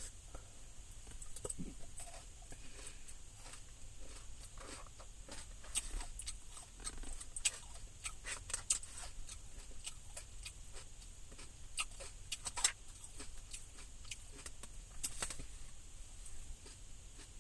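Close-up eating sounds: chewing tater tots with nacho cheese and chili, with scattered small clicks and crackles from the mouth and from a fork against the food container, a few of them louder.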